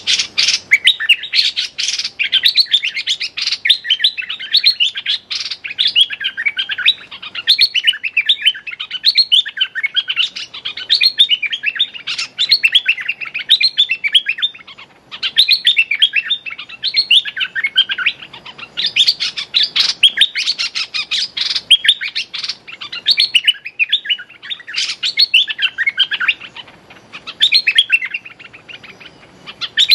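Bulbuls calling in rapid, busy chattering phrases, one after another almost without pause: a caged decoy bulbul calling at a wild bird to lure it to the trap.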